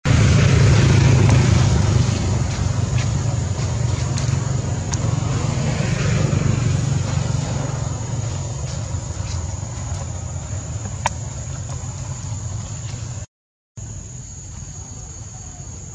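A motor vehicle's engine running, a steady low rumble that slowly fades.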